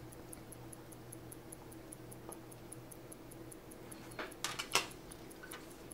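Faint, even ticking of a running timepiece, about five ticks a second, over a low steady electrical hum. A quick cluster of sharp little metal clicks about four seconds in, from small steel tools working a screw out of a watch movement's barrel bridge.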